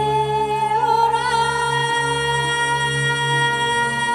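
Music: one long held melodic note over a steady, slowly pulsing low drone, the note stepping up in pitch about a second in.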